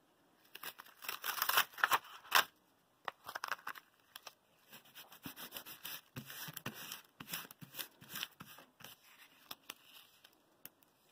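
Clear plastic laminate sheet, used as transfer tape over a vinyl stencil, crackling and crinkling as hands press, rub and handle it. It comes in quick bursts of sharp crackles, loudest about two seconds in, then a longer run of crackling from the middle on.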